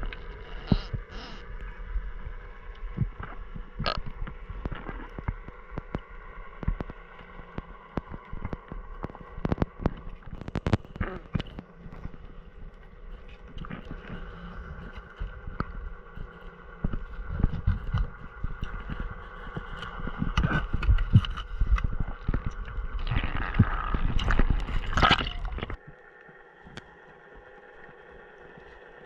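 Muffled underwater sound through a camera housing: irregular knocks, clicks and scrapes as a rope is hauled off the coral, over a steady hum of several tones. A louder rushing stretch comes near the end, then the sound drops away suddenly.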